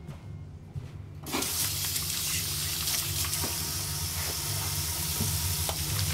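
Kitchen tap turned on about a second in, water running steadily into a metal bowl in the sink while hands work in it, with a few small knocks against the bowl.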